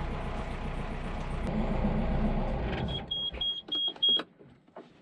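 Sailboat's inboard engine running steadily, then shut down about three seconds in. As it stops, the engine panel's alarm gives a quick string of about five high beeps, followed by a few light clicks at the panel.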